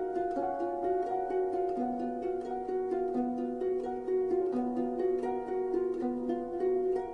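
Background music of quick plucked-string notes, several a second, in a steady flowing pattern.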